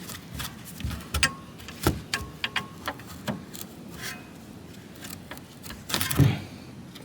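Hand tools clinking and tapping against metal suspension parts in scattered, irregular clicks, with a louder knock about six seconds in.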